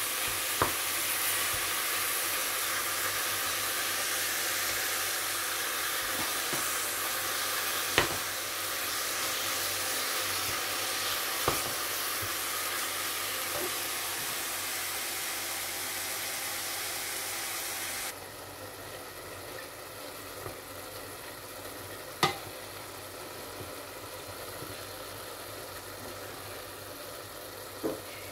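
Ground beef with onion and garlic sizzling steadily as it fries in a stainless steel pot, stirred with a wooden spatula that knocks sharply against the pot a few times. Partway through, the sizzle drops to a quieter level.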